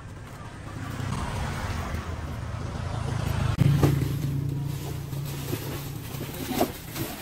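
A motor vehicle's engine running past, building from about a second in, loudest around the middle, then easing off. A few sharp knocks come near the end.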